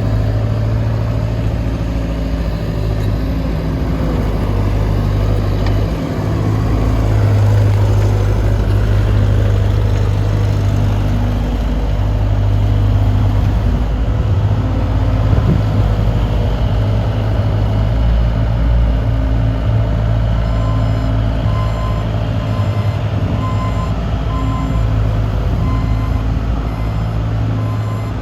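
Bobcat S450 skid-steer loader's diesel engine running, its level rising and easing as the machine works. From about two-thirds of the way through, its reversing alarm beeps in a steady on-off rhythm.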